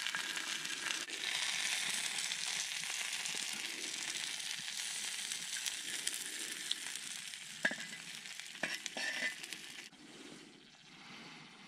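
Sliced onions sizzling in a steel frying pan over a campfire, with a few sharp clicks from the axe head scraping and tapping on the pan as the onions are lifted out. The sizzling cuts off abruptly near the end.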